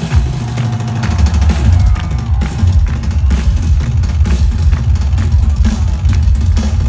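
Loud live rock music led by an amplified drum kit, playing an uneven run of bass-drum and snare hits and fills over heavy bass.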